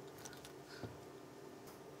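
Faint ticks and one light knock from small electronic parts being handled on a workbench, over a steady low hum.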